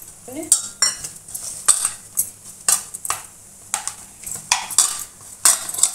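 Hand kneading maida dough with water in a stainless steel bowl: irregular clinks and scrapes against the steel, with the glass bangles on the working wrist clinking.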